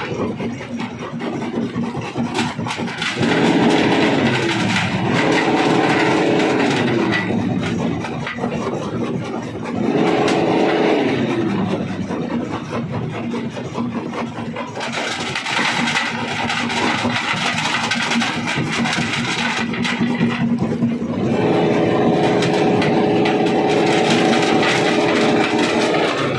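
Heavy machinery at a jaw rock crusher running continuously: an engine whose pitch sags and recovers several times, with a stretch of rough rattling and grinding noise in the middle.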